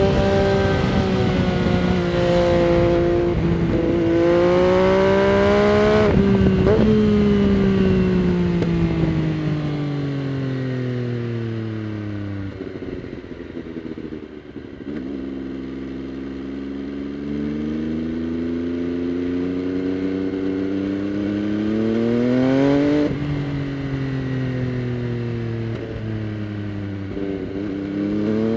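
2022 MV Agusta Dragster 800 RR's 798 cc inline-three engine breathing through a Fresco Trio Corse exhaust with its dB-killer fitted, heard from the rider's seat on the move. Revs climb with several quick upshifts in the first few seconds, then fall away for several seconds as the bike slows, then climb again in the second half, with wind rumble on the microphone.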